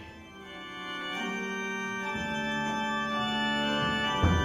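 Organ music playing sustained chords, fading in about half a second in and growing steadily louder. A single thump near the end.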